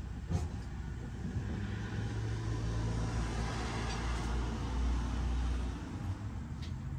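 A motor vehicle's engine running low and steady, swelling to its loudest about five seconds in and easing off soon after, with a single sharp knock just after the start.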